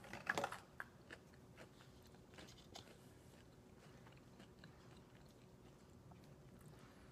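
A person chewing food with the mouth closed: a quick cluster of chewing clicks in the first half second, then a few faint mouth sounds, fading to near silence.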